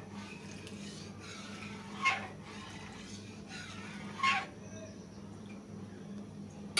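Boiled lentils being stirred and mashed with a metal dal masher in a karahi, quiet, over a steady low hum. Two short, louder sounds come about two seconds and four seconds in.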